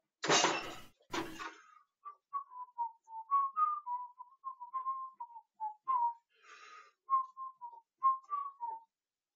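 A man whistling a wandering tune as a string of short notes. The whistling starts about two seconds in, after two short bursts of noise.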